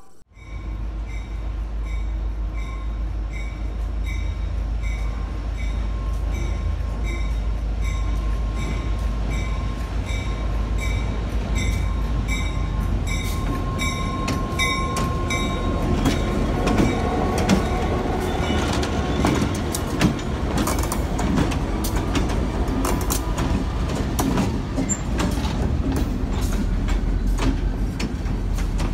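Diesel locomotive passing slowly with a steady low rumble, with an evenly repeating ring about once a second through the first half. From about halfway, empty open-top freight cars roll by, wheels clattering and cars clanking on the rails.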